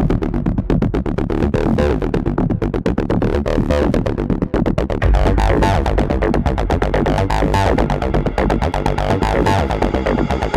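Electronic dance music with a fast, steady beat and strong bass.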